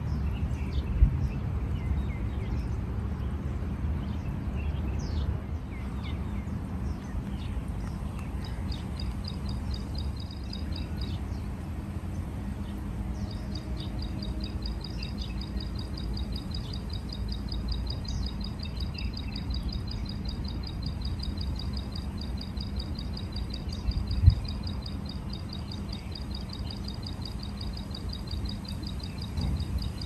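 Rice-paddy ambience: scattered short high chirps in the first few seconds, then a long, fast, high-pitched trill that starts about eight seconds in, breaks off briefly and runs on. Underneath is a steady low rumble, with a sharp knock near the start and another about three-quarters of the way through.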